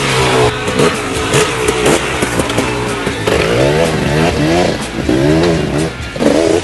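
2005 KTM 300 EXC two-stroke engine with an FMF exhaust, revving up and falling back again and again, its pitch sweeping up and down many times.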